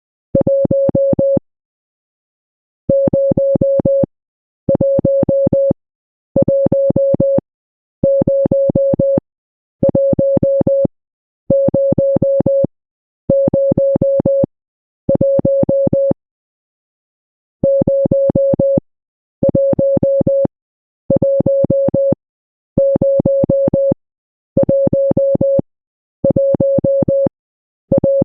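Morse code sent as a single electronic beep tone keyed on and off: a long run of equal tones, each about a second long, with short gaps. There are longer pauses about a second and a half in and about sixteen seconds in.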